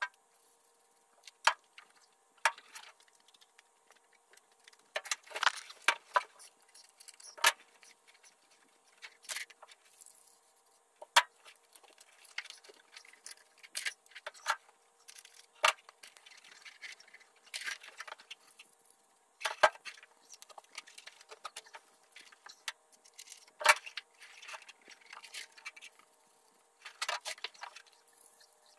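Irregular crackles, rustles and sharp clicks of foil-faced insulation sheets and foam being handled and pressed up against a car roof, with a faint steady hum underneath.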